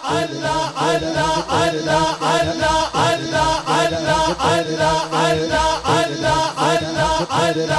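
A male naat singer chanting through a microphone and sound system, over a steady quick beat.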